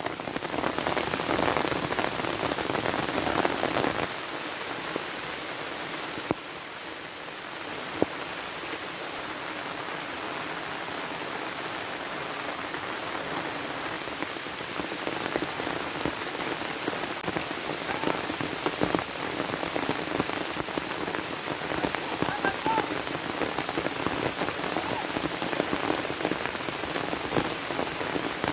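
Steady monsoon rain falling, an even hiss of rain with a slight drop in level about four seconds in and a couple of sharp ticks a few seconds later.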